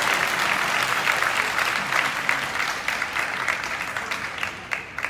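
Crowd of spectators applauding after a point, the clapping fading out and thinning to a few last claps near the end.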